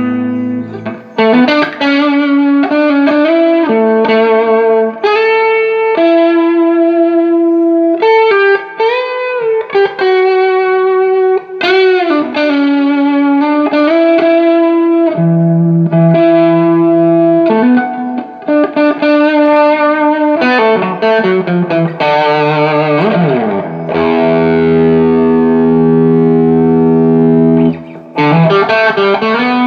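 Electric guitar played through a Carr Lincoln valve amplifier with fresh JJ EL84 power tubes: single-note phrases with string bends and long held notes. About three-quarters of the way through, a sweeping slide of pitch comes before a sustained note.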